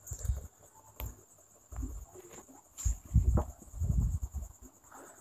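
Crickets chirring steadily in the background, with several soft, low, muffled thuds and breath-like noises close to the microphone.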